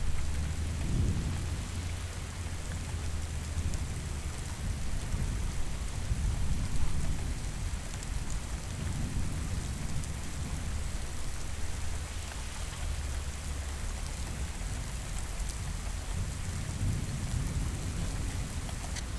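Steady rain with low rolling thunder that swells and fades a few times.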